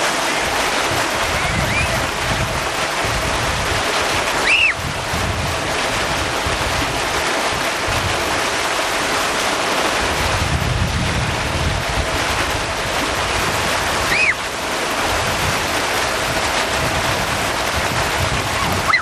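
A motorboat under way: wind buffeting the microphone and water rushing past the hull and wake make a steady rush, with a faint steady hum underneath. Two short high squeaks come about five and fourteen seconds in.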